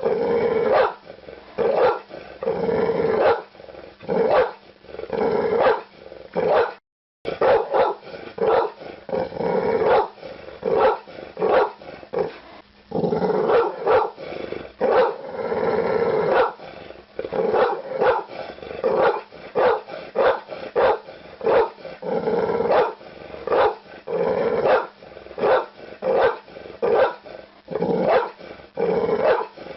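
Pit bull barking over and over in quick repeated barks mixed with growling. The sound cuts out briefly about seven seconds in.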